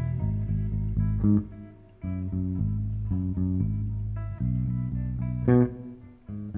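Live band recording in an instrumental passage: guitar over bass playing chords. Twice the band hits an accent and then drops out briefly before coming back in.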